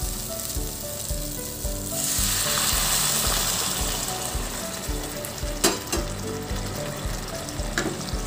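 Hot water poured into a hot kadai of oil-fried cauliflower, potatoes and spice masala, which sizzles. The sizzle swells sharply about two seconds in as the water hits the hot oil, and stays loud while it is stirred. A sharp knock comes a little past halfway.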